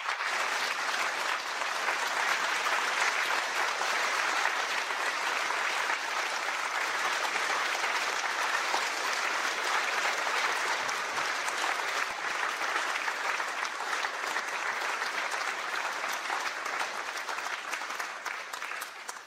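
Audience applauding steadily, dying away at the very end.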